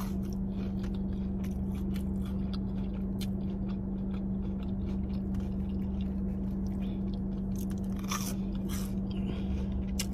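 Close-up mouth sounds of chewing and biting into breaded fried buffalo chicken bites, with wet clicks and light crunching, over a steady low hum.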